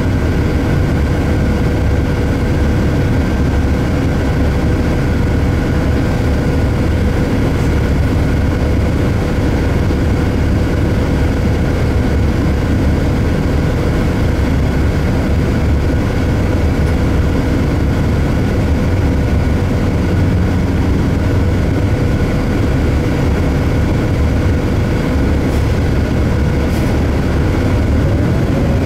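Orion VII compressed-natural-gas transit bus heard from inside the cabin, its engine idling with a steady low rumble while stopped. Near the end the engine note begins to rise as the bus pulls away.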